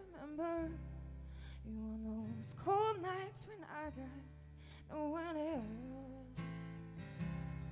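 A woman singing over a strummed acoustic guitar with a live rock band, her voice in three short phrases with bending, wavering pitch over held chords.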